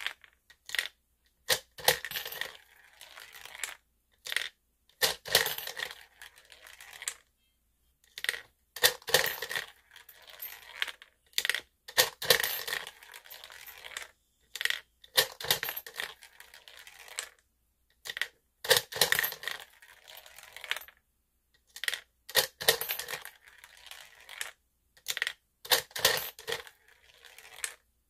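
Gumballs clattering and rolling down the plastic spiral ramp of a toy bubble gum machine, in repeated bursts of clicks separated by short pauses.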